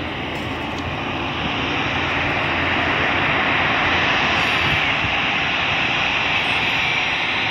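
Airliner's engines heard from the airport: a steady rushing engine noise that grows louder over the first few seconds, then holds.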